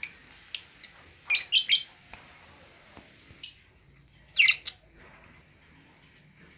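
Fischer's lovebirds giving sharp, high chirps: a quick string of calls in the first two seconds, then a short fast run of chirps about four and a half seconds in.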